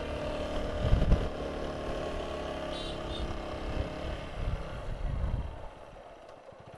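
Motorcycle engine running steadily as it climbs a steep road, with low wind rumble on the microphone. The sound drops to a much lower level about five and a half seconds in.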